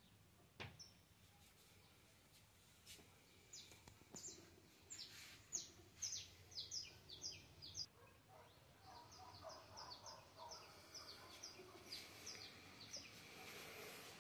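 Faint bird chirping: quick runs of short high chirps that start a few seconds in and go on with brief gaps, with a single click near the start.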